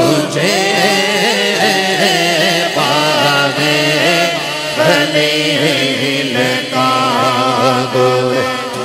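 A man singing a naat in a drawn-out, wordless melodic run with wavering ornaments, over a steady low drone.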